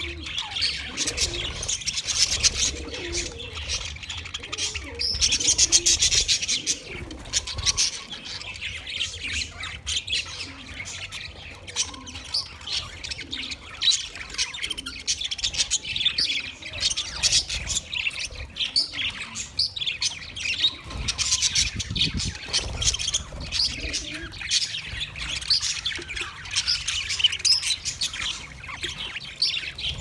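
Flock of budgerigars chirping without a pause, many short calls overlapping.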